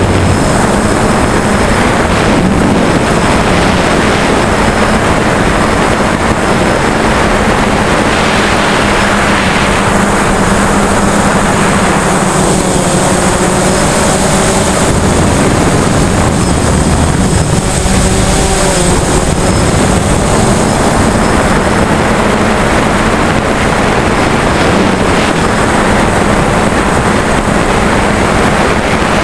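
DJI Phantom quadcopter's motors and propellers running in flight, a loud steady buzz with a low hum underneath, picked up close by a camera carried on the drone itself.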